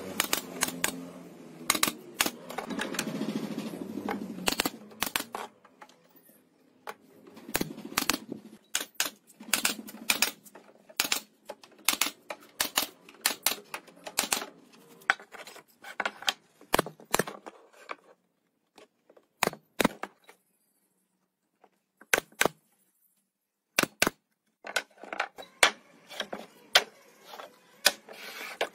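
Pneumatic nail gun firing nails into wooden boards: sharp snapping shots, often several in quick succession, separated by short pauses. The shots thin out to a few scattered ones for several seconds about two-thirds through.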